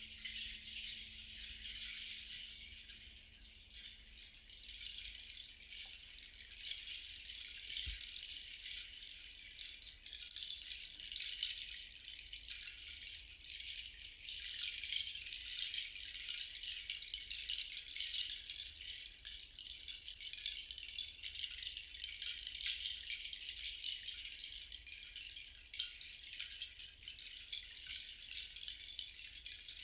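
A hand rattle shaken continuously in a fine, dense rattle that swells and eases without a steady beat. A faint low tone fades away during the first few seconds.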